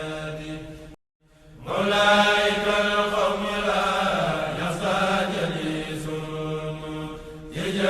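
Voices chanting in unison on long, steady held notes. The sound cuts out suddenly about a second in and picks up again shortly after.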